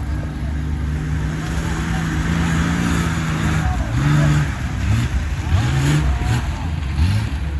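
People talking over a steady motor hum.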